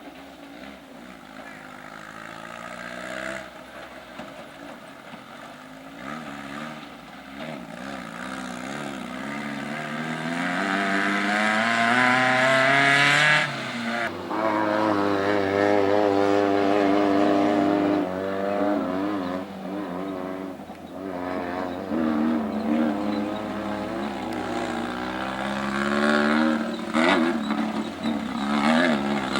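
Off-road race vehicle engine revving hard as it approaches, climbing in pitch and loudness until it cuts off sharply just before the middle. It then picks up again, rising and falling through gear changes and throttle lifts.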